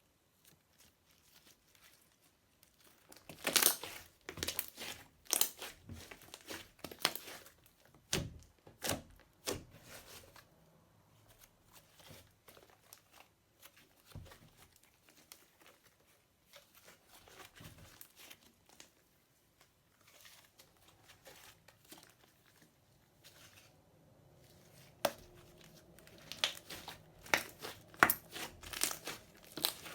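Slime being squished and worked by hand, giving irregular crackly, crinkly pops. These come in busy spells near the start and again near the end, with sparser, fainter crackling in between.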